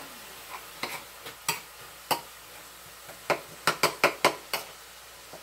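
Metal utensil clinking and scraping against a skillet while stirring browning ground turkey: scattered sharp taps, with a quick run of them past the middle.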